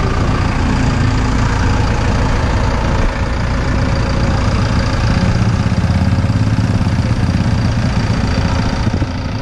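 A vehicle engine idling steadily close by.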